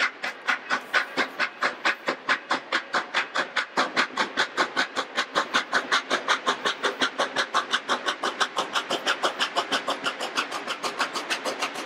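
Exhaust of steam locomotive 7470, a 1921 Grand Trunk-built 0-6-0 switcher, working hard: a steady, rapid chuffing of about five sharp beats a second, growing slightly faster toward the end.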